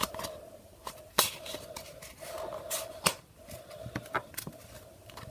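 Pokémon trading cards being handled and moved through a stack, giving several sharp card snaps and flicks, over a faint steady hum.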